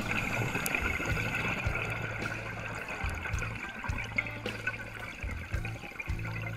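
Background music with a low bass line whose notes change every second or so, over a steady watery hiss.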